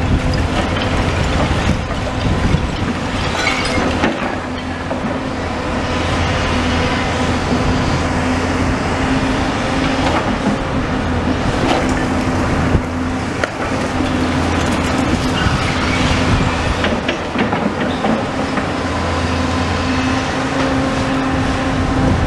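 Tracked demolition excavator running with a steady engine and hydraulic drone, while bricks and rubble clatter and knock repeatedly as its slotted sorting grab works the debris pile.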